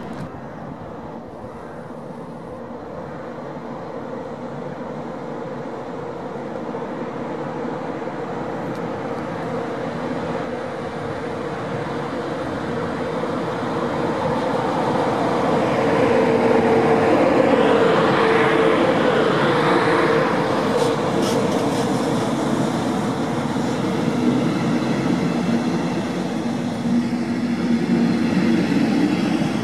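DB Class 111 electric locomotive hauling double-deck coaches draws near and passes: the running noise grows steadily louder, with a steady hum and a whine that rises and falls as the locomotive goes by about two thirds of the way in, then the coaches roll past.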